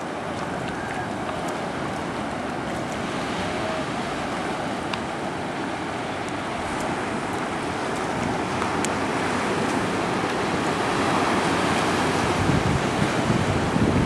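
Ocean surf washing up a sandy beach, with wind buffeting the microphone. The wind rumble grows louder near the end.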